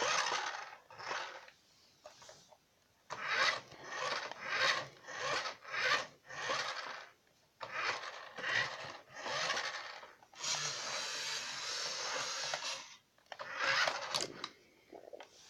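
Plastic toy car (a remote-control Brum) pushed back and forth by hand, its wheels rolling and scraping on a surface in a run of short strokes, then one longer push of about two seconds.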